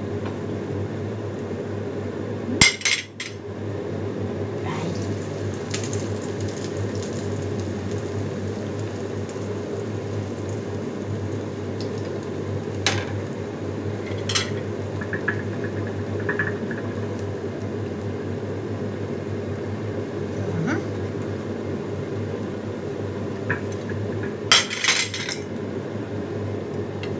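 Slice of bread frying in oil in a small frying pan under a steady hum, which is most likely the kitchen extractor hood, with clinks of a plate and fork about two and a half seconds in, twice in the middle, and again near the end.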